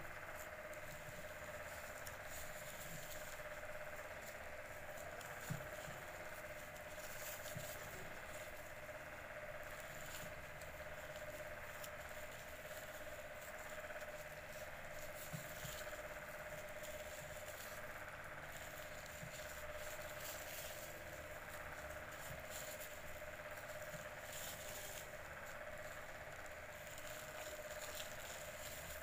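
Faint rustling and crinkling of plastic-bag strips being crocheted with a metal hook, with a couple of small clicks, over a steady background hum.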